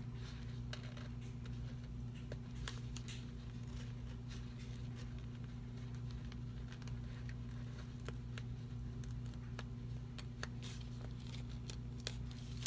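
Steady low hum with a few faint, scattered clicks and light taps.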